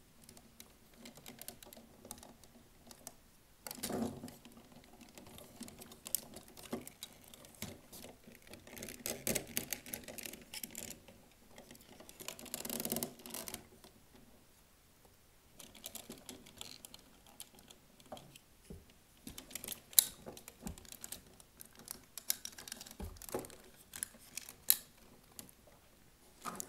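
Parts of a Power Rangers Legacy Collection Megazord and Dragonzord figure being handled and fitted together: irregular runs of clicks, clacks and rubbing as pieces are moved and snapped into place, with one sharper click about three-quarters of the way through.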